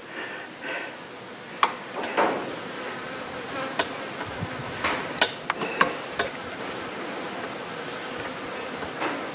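Scattered light metallic clicks and taps, a few of them sharp, as an arrowhead cold-forged from a spoon is shifted and adjusted in the jaws of a steel bench vise. A faint steady hum runs beneath.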